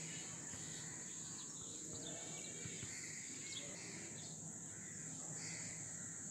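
Outdoor ambience: a steady high-pitched insect drone, with faint scattered bird calls.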